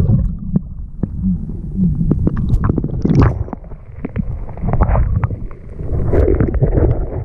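A hat-mounted camera dunked underwater and lifted back out: muffled underwater rumble and gurgling with scattered knocks, then a splash of water as it breaks the surface about three seconds in, followed by dripping, rustling handling noise.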